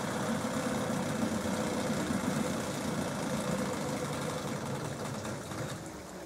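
Early-1960s Johnson 5 hp two-stroke outboard motor running at idle with a fast, even rumble, growing quieter over the last second or two.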